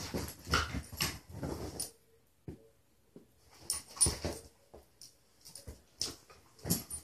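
Two beagles play-fighting: short bouts of play growls and snarls mixed with scuffling on the couch. The bouts come in clusters during the first two seconds, again about four seconds in, and near the end, with a quiet pause between.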